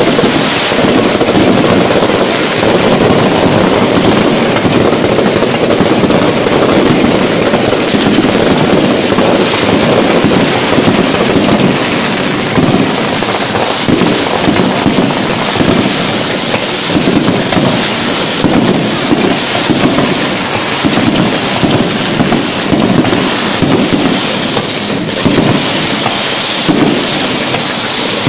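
Dense fireworks barrage at close range: many shells bursting and crackling at once, running together into a loud, continuous din with no single bang standing out.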